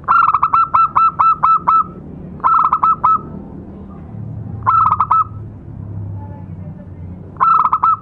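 Zebra dove (perkutut) cooing: four bursts of rapid, short notes, each note falling in pitch at its end. The first burst runs about eight notes, and the three that follow run three to five notes each.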